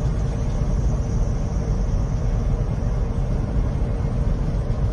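Car driving steadily on a paved road, heard from inside the cabin: a steady low rumble of engine and tyres with a faint steady hum.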